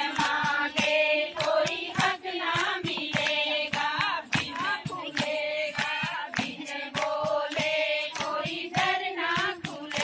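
A group of women singing together in chorus, with steady hand clapping keeping the beat, about three claps a second.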